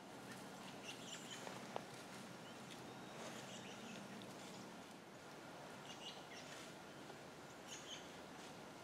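Quiet woodland ambience: a faint steady hiss with a few faint, short high bird chirps scattered through it, and one small sharp click about two seconds in.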